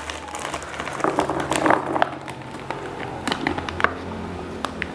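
Crinkling of a thin plastic snack packet being snipped open with scissors, with scattered light taps and rattles as puffed cheese balls are tipped out into a plastic jar.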